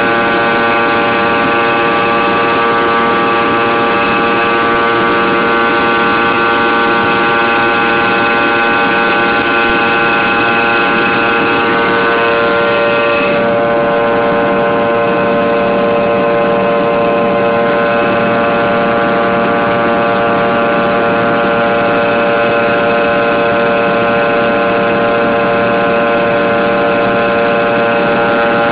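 Fokker 100's rear-mounted Rolls-Royce Tay turbofan engines heard from inside the cabin in flight: a loud, steady drone with many steady whining tones layered over it. A little after halfway the higher whine dims for a few seconds, then returns.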